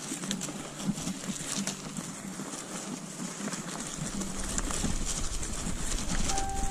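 Bicycle riding over rough ground covered in dry leaves and grass: tyre noise with many small rattles and clicks from the bike, and a low rumble that grows stronger about halfway through.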